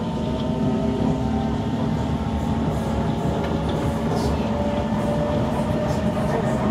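Kawasaki C151 metro train running on the rails, heard from inside the car, as it pulls away from the station. A steady motor whine sits over the rumble of wheels on the track and rises slowly in pitch as the train gathers speed.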